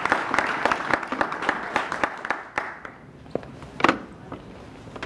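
Audience applauding, the clapping thinning out and dying away about halfway through. A few scattered knocks follow, the sharpest one just under four seconds in.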